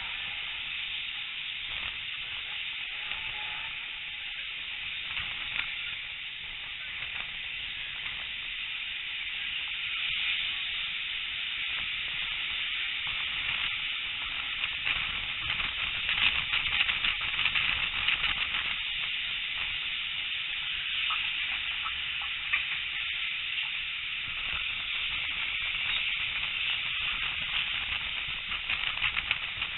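Wind rush and running noise from a moving steam-hauled train, heard at an open carriage window: a steady crackling hiss that grows louder for a few seconds around the middle.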